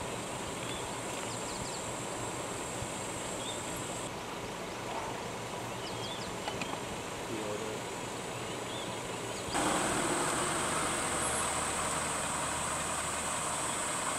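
Outdoor field ambience: a steady high-pitched drone with a few faint short chirps. About ten seconds in, a louder steady noise with a low hum sets in suddenly and holds.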